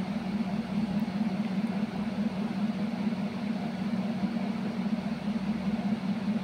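A steady low hum, with chicken pieces frying faintly in a pan as they are stirred.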